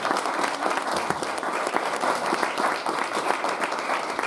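Wedding guests applauding and cheering as the couple kiss after "You may now kiss your bride": a dense, steady clapping.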